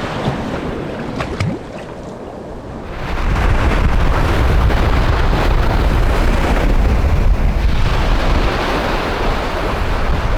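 Ocean surf washing on the beach with wind buffeting the microphone; about three seconds in the wind picks up and a loud low rumble covers everything.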